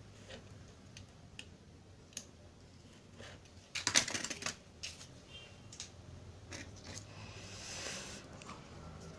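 Adhesive tape being pulled off its roll: a short crackly rip about four seconds in, and a softer stretch of tape unrolling near the end, among small clicks from handling the roll and the board.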